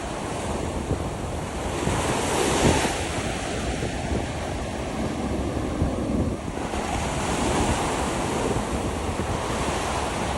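Ocean surf breaking on a beach, the wash swelling and fading twice, with wind buffeting the microphone.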